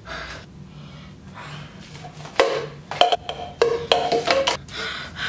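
A person breathing hard through an open mouth, with a run of short, sharp, loud sounds between about two and a half and four and a half seconds in.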